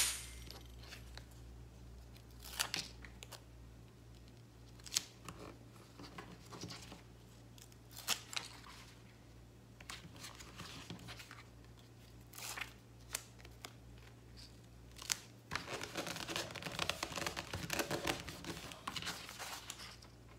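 Hands working with an adhesive sheet's paper backing, a nylon strap and EVA foam: short crinkles and clicks every couple of seconds, then several seconds of continuous rubbing and rustling near the end as the strap is pressed down onto the foam.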